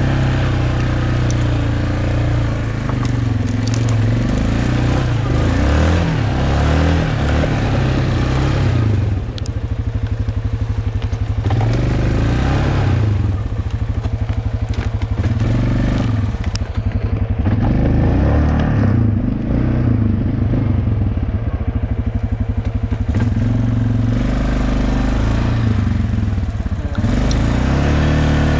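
Four-wheeler (ATV) engine working along an iced-over trail, its revs rising and falling repeatedly and dropping in places to a slow low chug, with crunching and scraping from the ground under the tyres.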